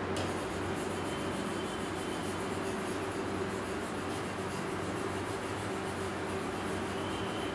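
Stylus scribbling rapidly back and forth on a touchscreen, a steady rubbing, blacking out text.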